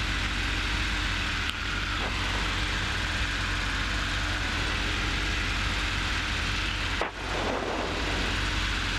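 Robin DR400 light aircraft's piston engine and propeller droning steadily, heard inside the cockpit during the initial climb after take-off. The level dips briefly about seven seconds in.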